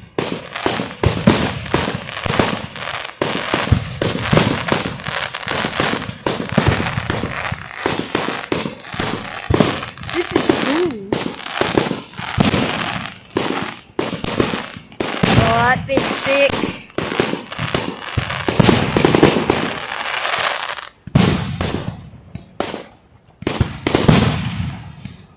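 Aerial fireworks going off in a dense barrage: bang after bang with crackling bursts in between, and a whistle rising in pitch about two-thirds of the way in.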